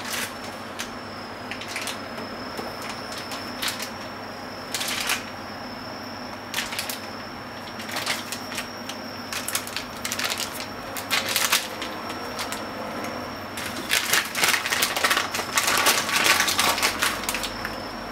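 Kitchen items being handled: irregular clicks, taps and light scraping on hard surfaces, coming thick and loudest from about fourteen to seventeen seconds in, over a steady hiss.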